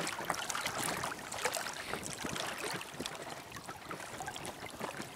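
Lake water splashing and lapping against the hull of a small inflatable dinghy under way in a light chop, with wind. It is a steady wash of water broken by many small, quick splashes.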